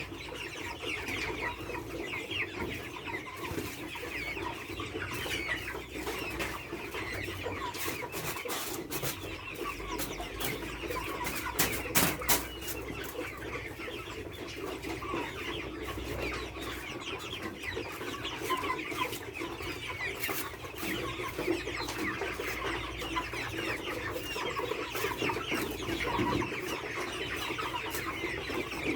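A flock of chickens clucking and calling continuously, many birds at once, with scattered knocks and clicks, the loudest about twelve seconds in.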